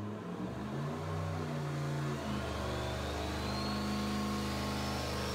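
Turbocharged 5.3-litre LS V8 running on an engine dyno. Its note shifts over the first two seconds and then holds steady, while a thin turbo whistle climbs slowly in pitch from about two seconds in.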